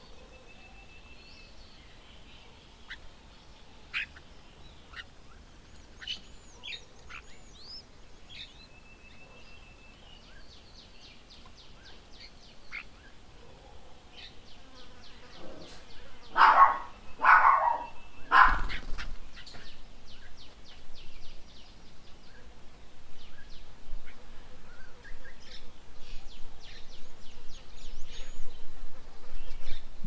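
Several birds calling: short chirps, whistled notes and rapid trilled call series, with three loud harsh squawks in a row just past the middle. A low rumble grows louder in the second half.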